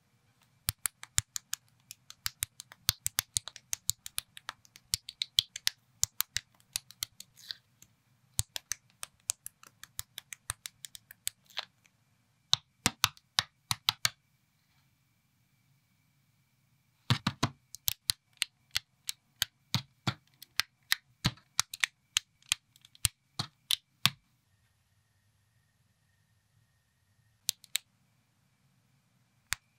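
Knockoff Lego plastic bricks being snapped and pressed together by hand: quick runs of sharp plastic clicks. Two pauses of a few seconds break them, one in the middle and one near the end.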